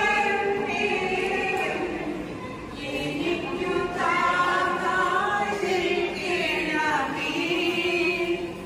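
Church congregation, mostly women, singing a devotional hymn together, the voices holding long notes and gliding between them.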